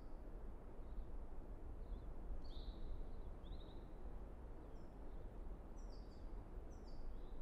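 Outdoor ambience: a steady low rumble of wind-like noise with small birds chirping, short falling chirps coming in a few clusters.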